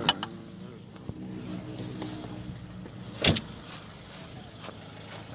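Sounds inside a car: a click at the start, then a low steady hum with a higher humming tone that holds for about two seconds. A single loud thump follows a little over three seconds in.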